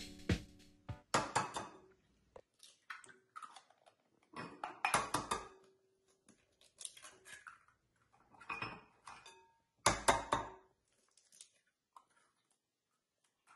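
Eggs being cracked and broken open over a glass mixing bowl: short taps and shell crackles in about five bursts, with quiet gaps between them.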